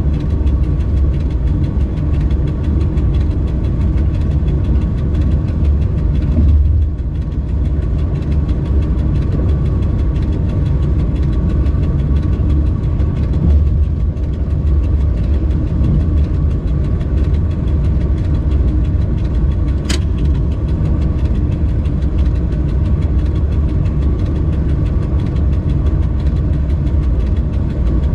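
Cab noise of an electric freight locomotive running along the line: a steady low rumble with a faint steady whine above it, and a single sharp click about two-thirds of the way through.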